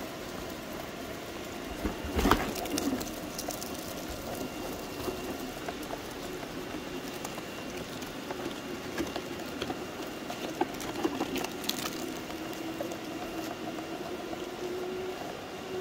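Traxxas TRX-6 six-wheel RC crawler's electric motor and geared drivetrain whining steadily as it crawls slowly over rocks and dirt, the pitch wavering with the throttle. A few sharp knocks and rattles come about two seconds in and again about two-thirds of the way through, heard close up from on board the truck.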